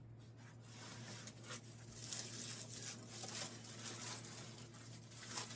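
Rustling and light scraping of cardboard and foam packaging being handled as a boxed 3D printer is worked out of its box, more rustling from about two seconds in, over a steady low hum.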